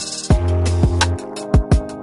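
Background music with an electronic drum beat: deep kick drums that drop in pitch, a held bass note, and sharp snare and hi-hat hits over a sustained chord.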